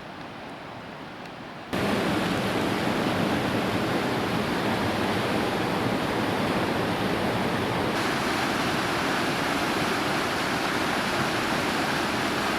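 Waterfall rushing steadily, heard up close. The loud rush begins abruptly about two seconds in, after a quieter stretch of steady background noise.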